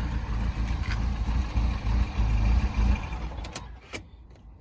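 Mini Countryman Cooper S 1.6-litre turbocharged four-cylinder idling roughly with a faint high whine, then switched off about three seconds in and running down, followed by a couple of sharp clicks. The rough running and whine come from an air leak that the owner traces to a failed PCV diaphragm.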